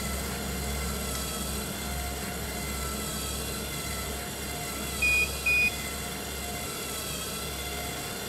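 SupNIR portable near-infrared analyzer running steadily as it measures a sample, a continuous motor hum with a faint high whine. Two short high beeps sound about five seconds in.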